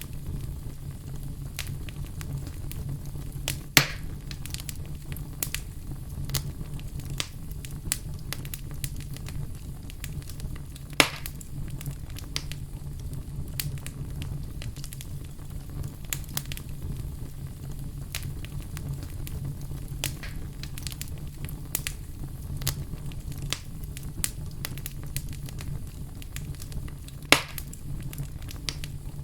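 Wood fire crackling: a steady low rumble of burning under constant small, sharp snaps, with three much louder pops, about four seconds in, about eleven seconds in, and near the end.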